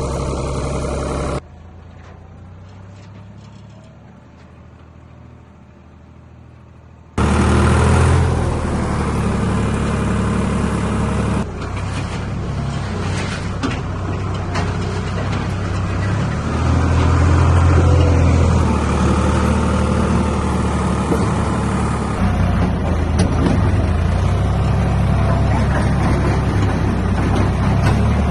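Old Ford backhoe's engine running under load while it works. The sound drops to a quieter level for about six seconds near the start, then comes back loud and swells around the middle.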